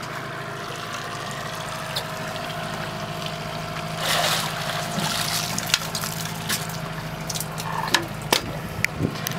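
Outboard motor idling steadily with water lapping at the hull. About four seconds in comes a splash as a kokanee salmon is scooped up in a landing net, then scattered knocks and clatter as the net and fish come aboard.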